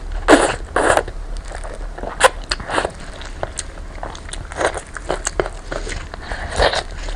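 Close-miked eating: irregular bites and chewing, a series of short crackling mouth-and-food sounds.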